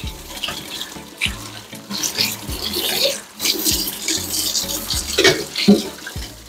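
Tap water running into a sink as dishes are washed, over background music with a repeating bass line.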